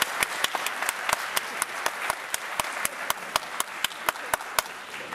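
Audience applauding, with sharp individual claps standing out over a steady hiss of clapping.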